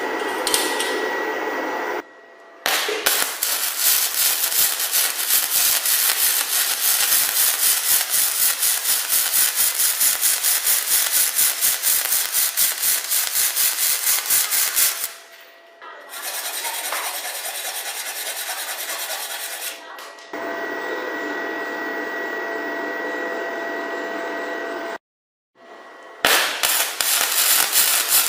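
Electric arc welding: a loud, rapid crackle and sputter from the welding arc, in several runs of about four to twelve seconds that stop and start abruptly.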